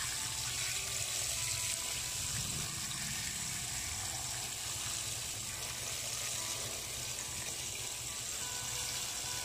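Water spraying steadily from a garden hose nozzle into a plastic basin full of live gouramis, splashing on the water surface and the fish.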